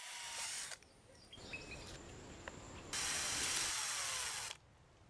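Cordless drill boring into a coconut palm stem with a long wood drill bit. It runs briefly at the start, then again and louder from about three seconds in, stopping suddenly.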